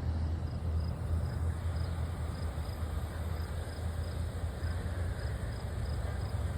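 Low, steady rumble of a Long Island Rail Road diesel train as it runs past the crossing, with faint insect chirps repeating every few tenths of a second.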